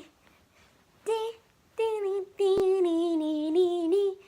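A child singing a wordless "do do do" tune: two short notes, then a long held note that wavers a little in pitch. A single sharp click cuts through about two and a half seconds in.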